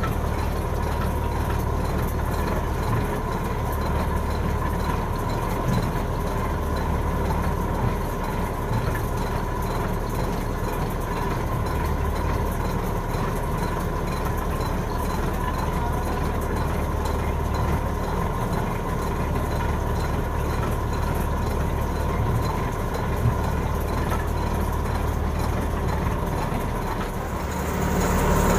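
Shrimp trawler's engine running steadily: a low drone with a steady whine above it, growing louder near the end.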